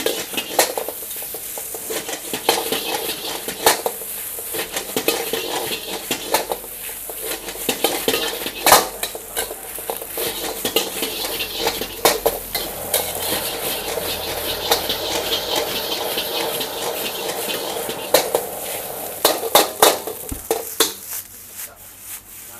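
Fried rice with cabbage sizzling in a steel wok while a metal ladle scrapes and clanks against the wok as the rice is stirred and tossed. The sharp clanks come irregularly, with a quick cluster of them near the end.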